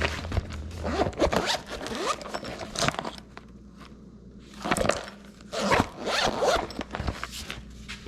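Rasping, zipper-like scrapes in two spells, with a quieter gap in the middle.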